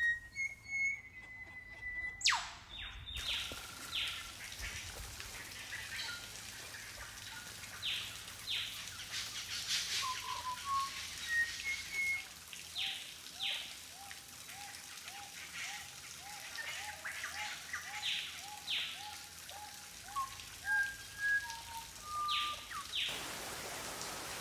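Rainforest birds calling over a constant hiss. There are clear whistled notes, pairs of sharp whip-like cracks, and, through the middle, a steady run of short falling calls, about two a second. Near the end the birdsong gives way to an even hiss.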